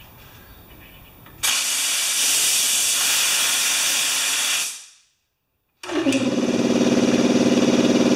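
Compressed air hissing out of an over-pressured air-compressor tank as it is bled down from about 140 psi. A steady hiss starts about a second and a half in and stops just before the middle; after a short silence a second loud release follows, this time with a low steady tone under the hiss.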